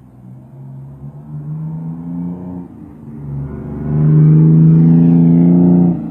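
Eagle Model 15 coach's Detroit Diesel 6V92 two-stroke V6 diesel engine being revved: a first rise in pitch, a brief drop, then a harder rev held loud for about two seconds before it is let off sharply near the end.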